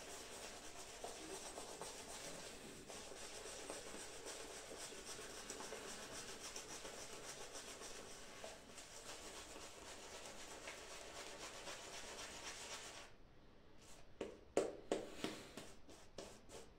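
Shaving brush working shave-soap lather over a stubbled face, a faint, steady bristly rubbing made of quick repeated strokes. The rubbing stops about thirteen seconds in, and a few short, louder strokes follow near the end.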